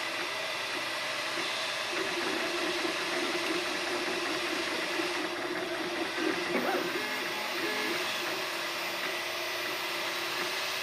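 3D printer printing: its stepper motors whine in short tones that jump between pitches as the print head moves back and forth, over a steady hiss.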